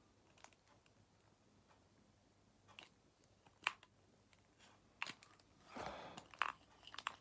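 Side-action correction tape roller pressed and drawn across a card: several faint, sharp plastic clicks at irregular intervals and a short scraping rub near the end.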